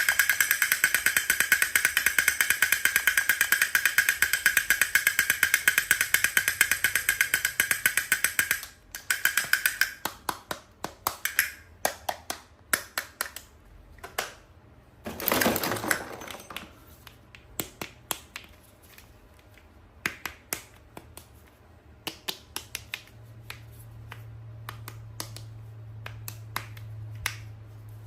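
Toys and packaging being handled: a rapid, even clicking with a ringing tone for about nine seconds, like a toy mechanism or ratchet turning, then scattered separate taps and clicks with a short rustle about fifteen seconds in.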